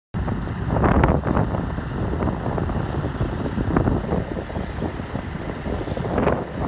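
Two diesel locomotives running as they move slowly along a yard track: a steady low rumble, with louder swells about a second in and near the end.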